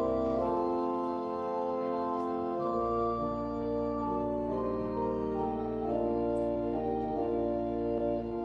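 Church organ playing the postlude at the end of the service: slow, sustained chords that change every second or so over long held bass notes.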